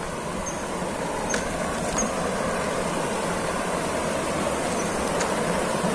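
Steady rushing of water from a small waterfall, an even hiss with no rhythm.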